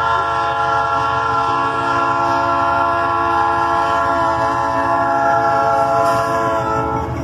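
GE C30M-3 diesel locomotive sounding its multi-tone air horn in one long steady blast of about seven seconds that cuts off near the end, over the low rumble of the locomotive passing.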